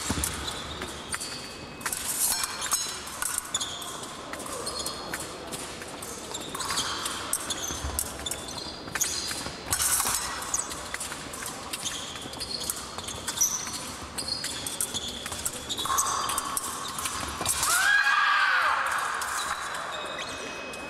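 Épée fencers' footwork on the piste: shoes stamping and squeaking, with sharp clicks and knocks. Near the end comes a louder squeal that rises and falls in pitch.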